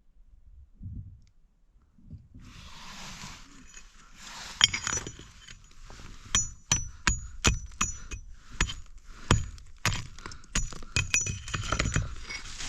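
A metal digging tool striking rock in a rapid run of sharp, ringing clinks, about two to three a second, starting a few seconds in after some scraping.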